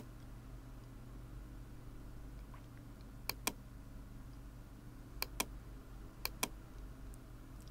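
Computer mouse clicked three times, each a quick pair of clicks about a fifth of a second apart, over a low steady hum.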